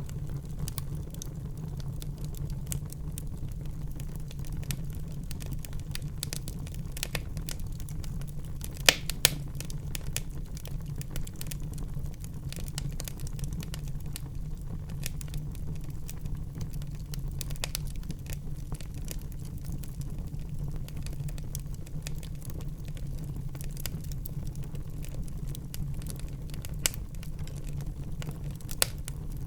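Wood fire burning in a fireplace with a steady low rumble and frequent crackles and pops, a few sharp loud pops about nine seconds in and again near the end.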